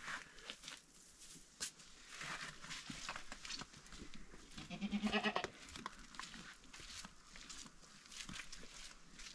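A single bleat from livestock about five seconds in, the loudest sound, over light rustling and clicks of dry straw fodder being scooped into a bucket.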